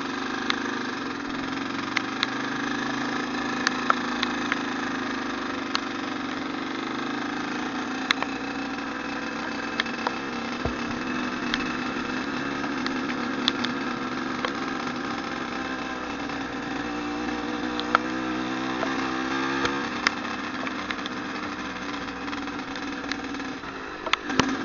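Trail motorcycle engine running steadily while riding, with scattered sharp ticks and knocks. About two-thirds of the way through, the engine note briefly wavers up and down as the throttle changes.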